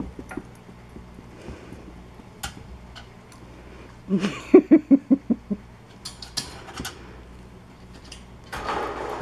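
Light clicks and knocks of a ping-pong ball and paws on a wire pet cage's metal tray and bars. About four seconds in, a quick run of about eight short, low, pitched grunting huffs from the American Eskimo dog at the bars, and a scraping rush near the end.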